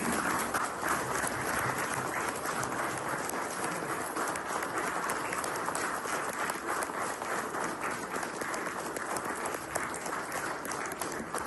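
Crowd applauding, a dense stream of many overlapping claps that tails off near the end.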